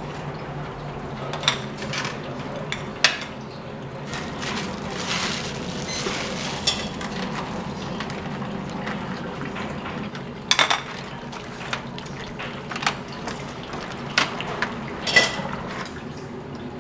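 Ramen-kitchen work: bowls, ladles and utensils clinking and knocking now and then, about six sharp strikes with a short ring, over a steady low hum.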